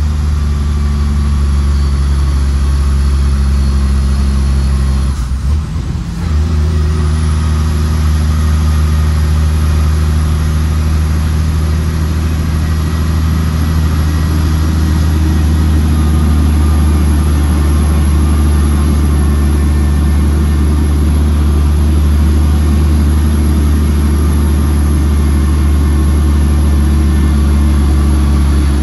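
Shacman F3000 dump truck's diesel engine running steadily while driving, heard inside the cab. The engine note briefly drops away about five seconds in.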